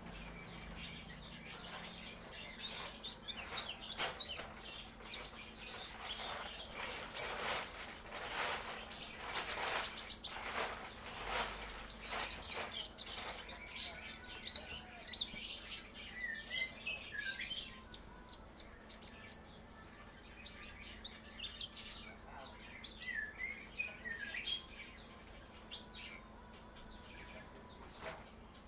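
A young kolibri ninja sunbird practising its song: rambling runs of thin, high chirps and quick trills, with the busiest trilling near the middle, the halting subsong of a bird still learning its call.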